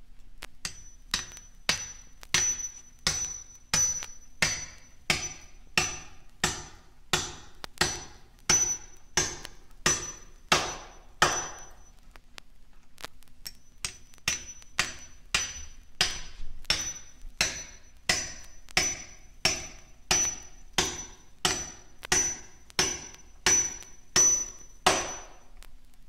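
Steady hammer blows, about one and a half a second, each with a high metallic ring, played back from a 1950s vinyl sound-effects record. They pause briefly just after the middle, then resume at the same pace.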